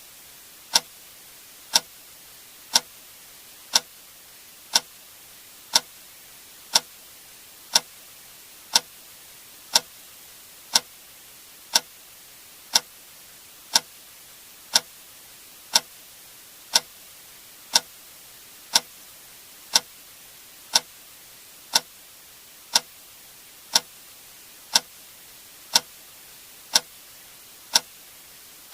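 A click sound effect repeating exactly once a second, sharp and evenly spaced like a metronome or clock tick, over a faint steady hiss.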